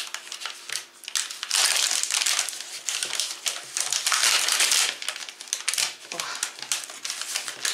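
A chocolate bar's paper wrapper and inner foil wrap crinkling in several rustling bursts as they are torn open and unfolded by hand.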